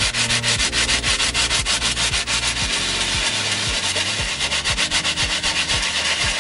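Soft-bristled scrubbing brush scrubbing a damp, soapy leather car seat in quick repeated strokes, a steady scratchy rubbing of bristles on leather several times a second.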